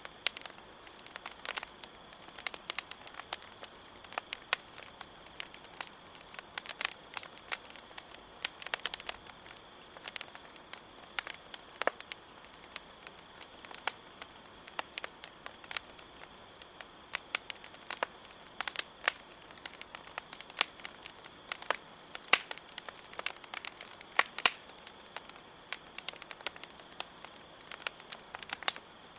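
Campfire crackling with frequent irregular pops, over a steady high trill of crickets.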